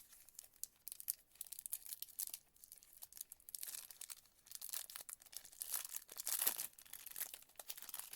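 Trading card pack wrapper being torn open and crinkled, with cards handled in between: irregular crackling in short runs, the loudest stretch about six seconds in.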